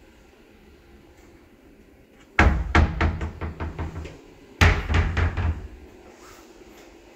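Cupboard doors being pushed shut twice: each time a sharp knock followed by a quick run of rattling clacks that die away within a second or so.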